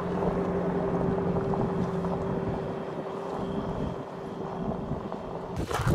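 SUV engine running as it drives off along a gravel track, a steady hum that eases slightly as the vehicle pulls away. A different sound breaks in abruptly just before the end.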